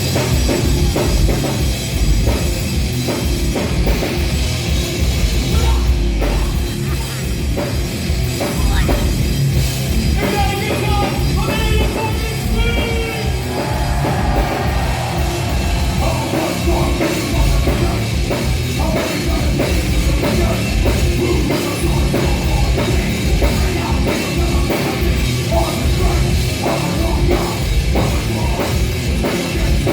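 A live metalcore band playing loud and without let-up: heavy drum kit and distorted guitars, with vocals rising above the band about a third of the way in.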